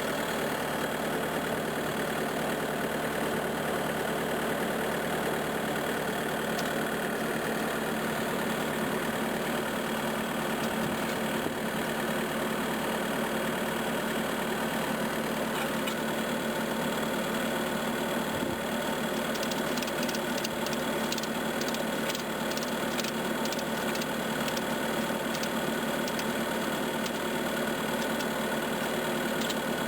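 Skid steer engine idling steadily, with a run of light clicks about twenty seconds in.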